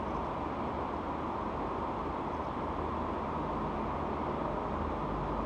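Steady room tone: an even fan-like hiss with a low hum underneath.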